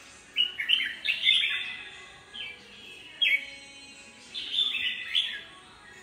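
Red-whiskered bulbul singing in its cage: several short whistled phrases of quick notes, many sliding downward, coming in bursts with brief pauses between them.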